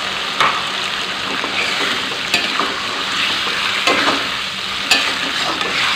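Chilli sambal and salted squid sizzling in a metal wok with a little water just added, stirred with a metal spatula that scrapes and taps against the pan a few times.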